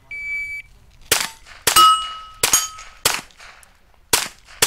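Electronic shot-timer start beep, then six quick rifle shots at steel targets, each hit followed by the ringing of the struck steel plate.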